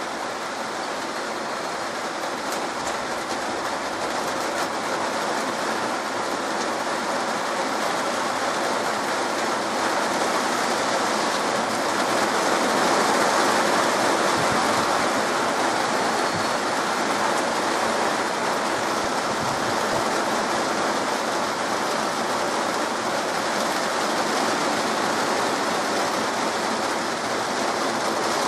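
Heavy rain pouring down, a steady dense hiss that swells over the first dozen seconds or so and then holds.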